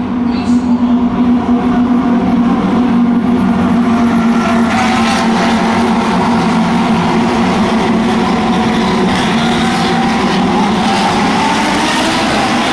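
A pack of Lamborghini Huracán Super Trofeo race cars passes, their naturally aspirated V10 engines at full throttle in a dense, overlapping engine noise. The noise grows louder and higher about five seconds in as more cars go by.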